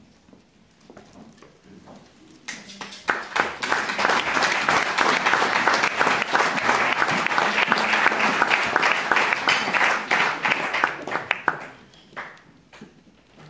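A room of dinner guests applauding, starting about two and a half seconds in, quickly swelling to a steady loud clapping and dying away near the end.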